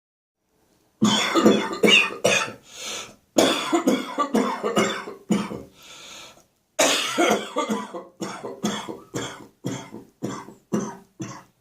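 A person in a severe morning coughing fit: runs of harsh, rapid coughs begin about a second in, broken by two short lulls, then settle into a string of shorter coughs at about two a second.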